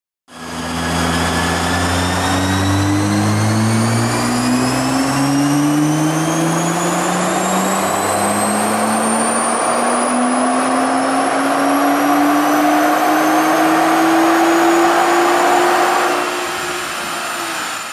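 2015 Nissan GT-R's twin-turbo 3.8-litre V6 making a full-throttle pull on a chassis dyno, its pitch climbing steadily for about sixteen seconds with a high whine rising alongside, then lifting off near the end.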